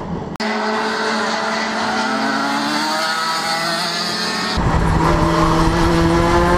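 Racing kart engines on track, their pitch rising and falling with the throttle. About four and a half seconds in, the sound switches to a closer, rougher engine note with heavy wind rumble from an on-kart camera.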